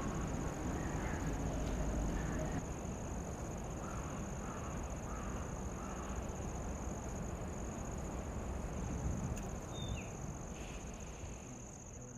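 Steady high-pitched insect drone over low rumbling outdoor noise, with a few faint soft calls in the middle.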